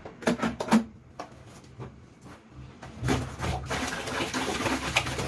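Three sharp knocks, then about two seconds of water rushing and splashing in a container.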